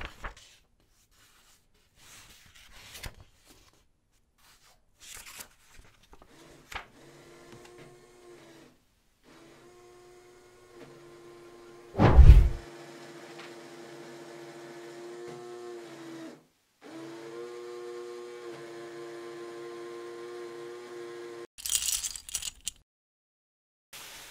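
LEGO Technic electric motors whirring as they drive plastic racks and pinions, in two long runs that shift a little in pitch, with scattered plastic clicks before them. A single loud thump comes about halfway through, and a short rustle, the page being turned, comes near the end.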